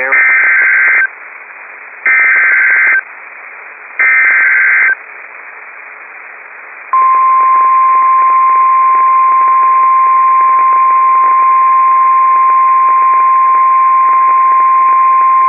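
NOAA Weather Radio Emergency Alert System signal heard through a weather radio receiver with a hiss of static. Three one-second bursts of warbling SAME digital header data come a second apart, then about seven seconds in the steady single-pitch 1050 Hz warning alarm tone begins. Together they announce a severe thunderstorm warning.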